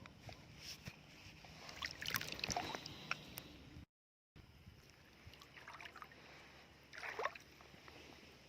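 Faint sloshing and splashing of shallow seawater, with scattered small splashes and clicks. The sound cuts out completely for about half a second around four seconds in.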